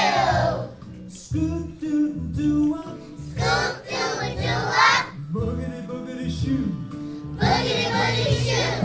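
Wordless scat singing in call-and-response: a leader sings short scat phrases and a group of young children echo them, over a backing music track with a steady bass line.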